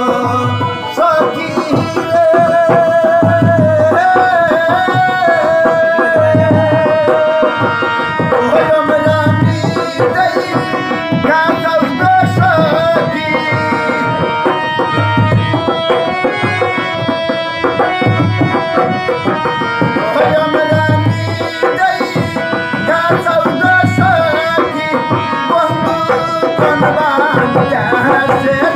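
Bengali folk music played live: a harmonium and a long-necked string instrument carry a wavering melody over a rope-laced double-headed barrel drum, whose deep strokes come about every second and a half, with a man's singing voice.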